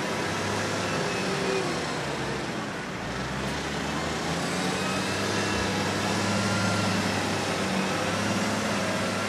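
New Holland tractor's diesel engine working hard under load as it drags a weighted pulling sled: a steady low drone that sags briefly about three seconds in, then builds a little.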